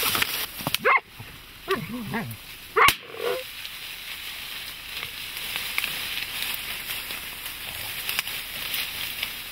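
Hunting dogs barking and yelping in short bursts during a boar hunt, with a single very loud sharp crack about three seconds in. After that, dry reeds crackle and rustle steadily.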